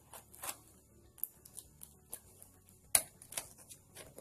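Hands handling and crinkling a taped, plastic-wrapped parcel while starting to open it: scattered sharp crackles and clicks, with one louder snap about three seconds in.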